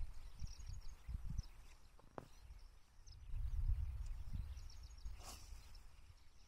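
Faint outdoor ambience: low, uneven rumble of wind on the microphone with scattered faint bird chirps, and one sharp click a little past five seconds in.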